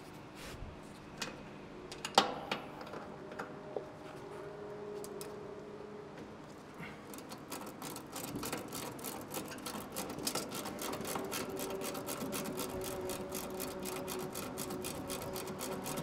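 Ratchet wrench on an air conditioner's refrigerant service valve: a few light metal knocks, then from about halfway in, fast continuous ratchet clicking as the valve is turned open to release refrigerant into the line set.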